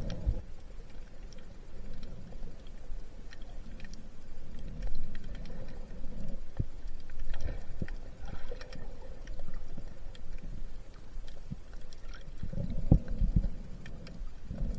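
Underwater ambience picked up by a submerged camera: muffled water movement with low rumbling and scattered small clicks, and a few heavier thumps near the end.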